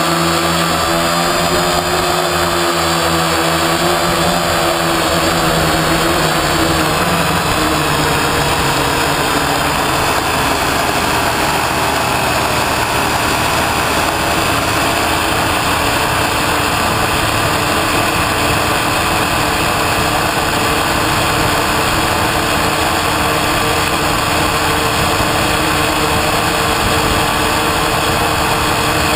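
Quadcopter's electric motors and propellers running with a loud, steady buzz. For the first several seconds the pitch wavers, then it settles into a rougher, more even drone.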